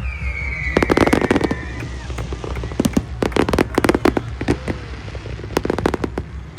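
Aerial fireworks going off in rapid volleys of sharp bangs and crackles: one cluster about a second in, a longer run around three to four seconds, and another near the end.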